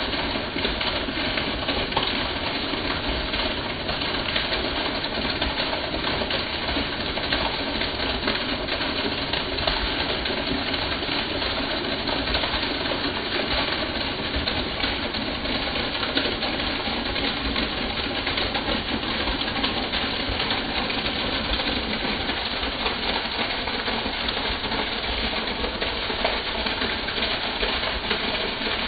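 Heavy rain with a stream of rainwater pouring off a roof edge, a steady, even rush with no let-up.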